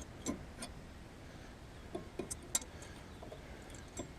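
Light, scattered clicks and taps of a full-ceramic brake pad and its metal caliper bracket as the pad is worked into the bracket's notches, with a sharper tick about two and a half seconds in.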